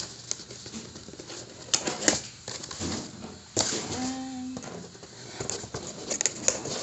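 Cardboard takeaway boxes and their foil and plastic wrapping being handled: scattered knocks, taps and rustles, with a sharper pair of knocks about two seconds in. A brief low tone sounds just after four seconds in.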